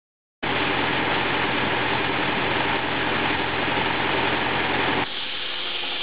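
Tractor-driven rack saw bench cutting a spruce log, blade and tractor engine running steadily under load. The sound starts abruptly. About five seconds in the cut ends and the level drops to the tractor engine and free-running saw.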